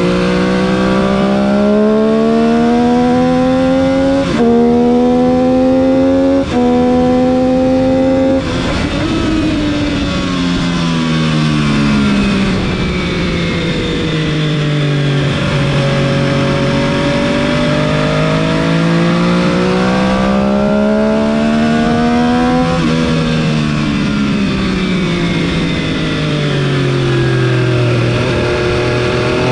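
MV Agusta F3 675's three-cylinder engine under hard acceleration, its pitch climbing and dropping sharply at three quick upshifts in the first several seconds. It then winds down as the rider slows for corners, climbs again to another upshift, and winds down once more before pulling up again near the end.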